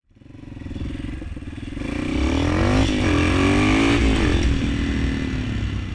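Honda CRF230M supermoto's single-cylinder four-stroke engine under way, its revs climbing about two seconds in, rising and falling a few times midway, then settling steadier.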